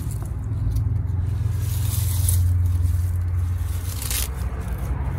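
Leaves rustling and scraping as salad greens are picked and handled, with short bursts about two and four seconds in, over a steady low rumble.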